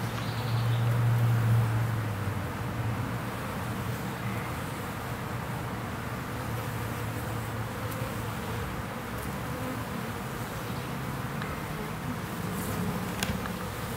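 Honey bees buzzing in flight close by, a steady low hum that is loudest for the first couple of seconds, then settles.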